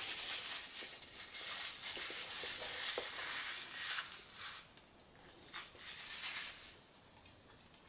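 A person eating a hot mouthful of apple cobbler: chewing with breathy, hissing mouth sounds in uneven stretches and a few soft clicks, then a pause near the end.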